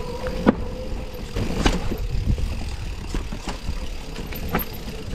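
Mountain bike riding down a rough, rooty trail: a steady low rumble of wind and tyres with irregular sharp knocks and rattles as the bike hits bumps.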